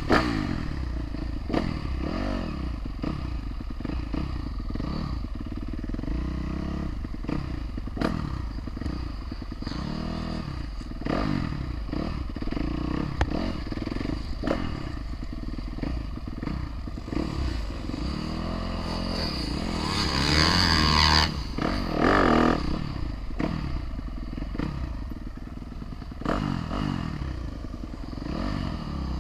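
Four-stroke motocross dirt bike being ridden hard around a track, its engine revving up and falling back over and over as the throttle opens and closes, with a louder, harsher stretch about two-thirds of the way through.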